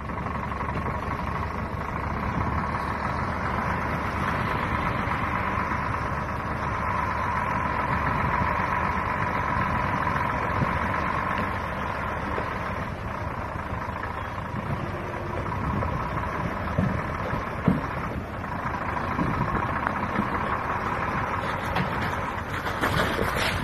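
Scania truck's diesel engine running steadily as the loaded truck pushes slowly through broken river ice, with a few short knocks in the second half.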